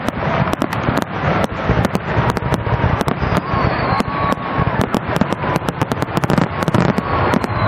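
Fireworks display: aerial shells launching and bursting in a rapid, uneven volley of bangs and crackles that follow close on one another.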